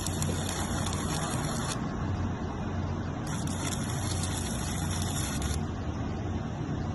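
Arc welding on a steel gate: the arc crackles in two stretches of about two seconds each, stopping sharply each time, over a steady low hum.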